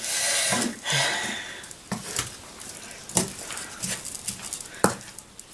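Two wooden spatulas stirring and scraping chopped onions and margarine in a non-stick frying pan. It opens with a breathy hiss for a couple of seconds, then a few light knocks of wood on the pan, the sharpest near the end.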